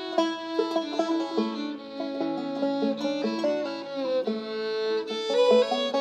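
Fiddle and banjo playing an old-time tune together: the fiddle carries held bowed notes over the banjo's plucked picking.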